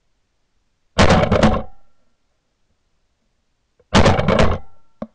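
Two shotgun shots about three seconds apart, each a sharp blast that dies away over under a second, picked up close by a camera mounted on the gun's barrel. A short tick near the end.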